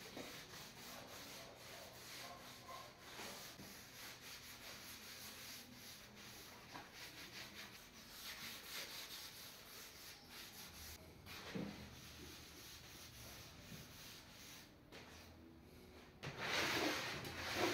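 Cloth rubbing beeswax over a flat MDF board: a faint, steady rubbing made of many light strokes. A louder noise comes in near the end.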